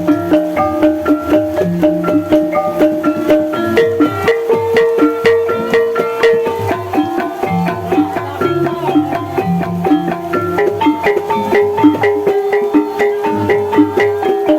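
Javanese gamelan music for an ebeg dance: struck metallophones play a steady run of ringing notes over a repeating low drum and bass pattern.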